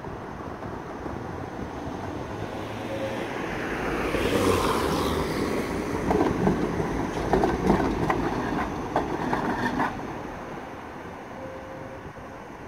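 Tatra T3 tram passing close by. Its running noise builds, then a run of sharp clacks comes as the wheels cross the rail joints and points of the junction, and the sound fades as it moves away.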